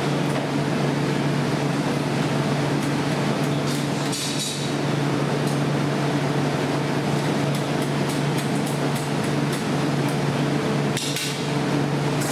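Steady hum of glassblowing hot-shop blowers and burners, with a run of light metallic taps from tools on the pipe and glass in the second half.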